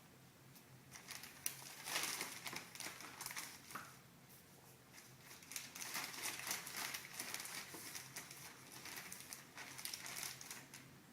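Plastic poly bag crinkling and rustling in irregular bursts as it is handled and items are put into it.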